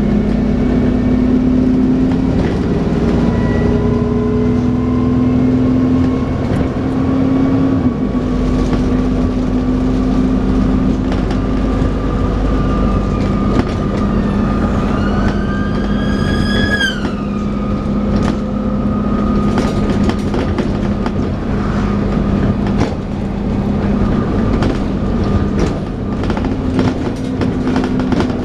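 Dennis Trident 2 double-decker bus running, heard on board, with the steady vacuum-cleaner-like whine that enthusiasts call 'hoovering'. There is a brief rising squeal about halfway through that cuts off sharply, and rattles and knocks from the bus body.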